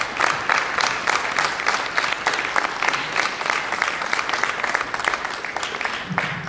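A crowd applauding: dense clapping that dies away near the end.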